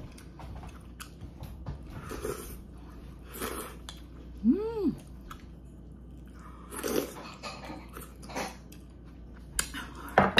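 Close-up eating sounds of a person taking kimchi dumpling and soup from a spoon: slurps, bites and chewing come in short bursts. About halfway through there is a short hum that rises and falls.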